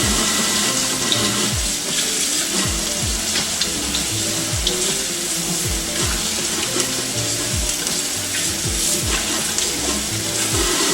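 Burger patty sizzling steadily in a hot frying pan, over background music with a steady beat.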